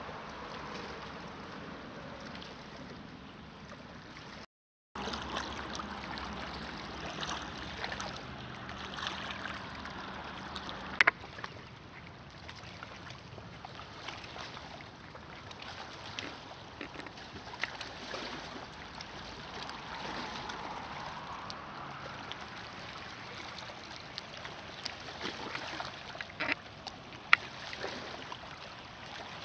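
Small lake waves lapping and gurgling against a rocky, pebbly shore: a steady watery wash with a few sharp clicks, the loudest about eleven seconds in and two more near the end. The sound drops out completely for about half a second about four and a half seconds in.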